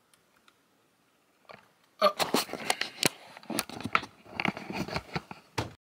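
A quick, irregular run of sharp clicks and crackles, starting about two seconds in and lasting nearly four seconds before cutting off.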